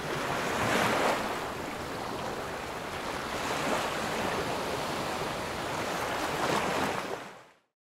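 Sea waves washing onto the shore, a steady hiss that swells about every three seconds, fading out near the end.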